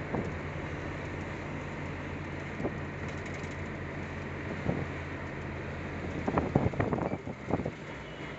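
Engine of a heavy vehicle droning steadily under road noise, heard from inside the cab while driving. Knocks and rattles come now and then, with a loud cluster of them about three quarters of the way through.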